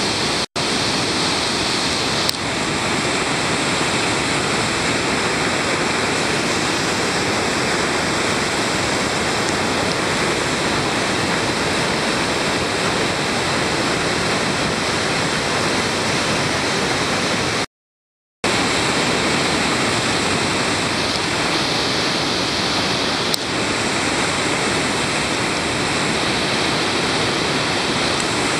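Steady rushing roar of whitewater rapids, broken by a sudden cut to silence for under a second about eighteen seconds in.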